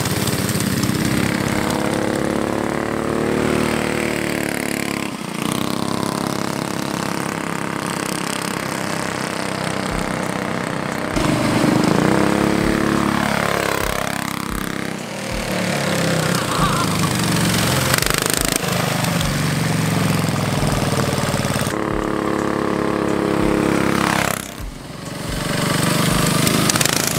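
Small single-cylinder engines of a mini bike and an off-road go kart with a Predator 212 four-stroke revving up and down as they ride past, the pitch rising and falling; the sound changes abruptly several times.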